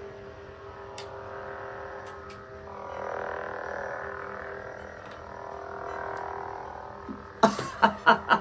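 NEO Saber lightsaber's sound board playing its steady electric idle hum, swelling louder and softer as the blade is moved. A person's voice cuts in loudly near the end.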